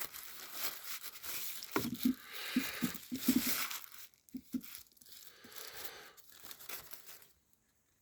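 Packaging being handled and opened to take a Bluetooth speaker out of its box: a rustling noise with a cluster of soft knocks in the middle. It dies down after about four seconds to faint handling sounds.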